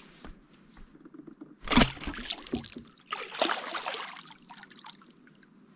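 A fish spear struck into the water with a sudden splash about two seconds in, followed about a second later by a longer stretch of splashing and trickling water.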